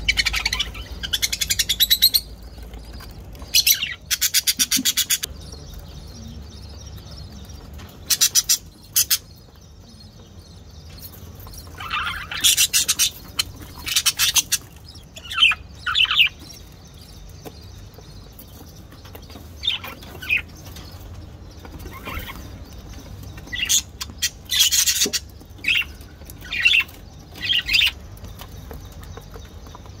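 Budgerigars chirping and chattering in short, scattered bursts, some of them fast buzzy trills, with quieter gaps between.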